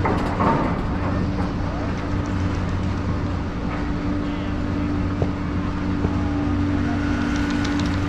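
Garaventa-CTEC Stealth II chairlift drive terminal running: a steady hum from the drive machinery, with the haul rope and chairs rolling through the sheaves and a sharp click about five seconds in.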